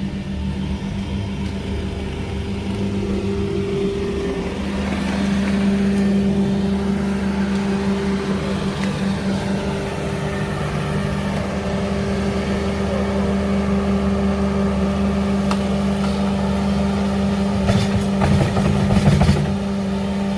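An engine running steadily at a constant speed, with a few knocks or clatters near the end.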